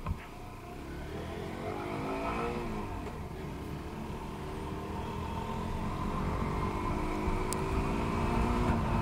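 Motorcycle engine pulling away and accelerating, its pitch climbing, dropping at a gear change about three seconds in, then rising steadily again through the next gear.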